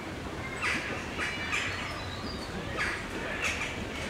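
Birds squawking: about five short, separate calls, some in quick pairs, over steady low background noise.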